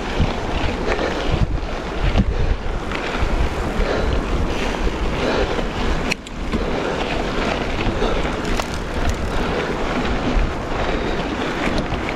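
Wind rushing over the microphone of a mountain bike rider's camera, mixed with the tyres running over dirt and stone and a few short rattles and knocks from the bike.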